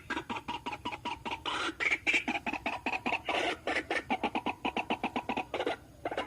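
White-breasted waterhen calling: a fast run of harsh, repeated notes, about ten a second, with a few longer notes mixed in, breaking off briefly near the end.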